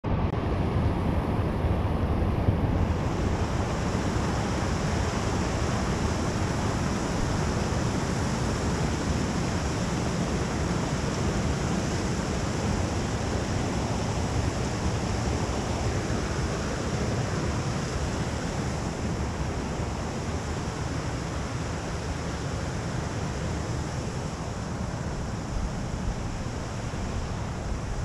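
Steady rush of a small mountain creek cascading over rocks, a constant noise that grows a little fainter toward the end.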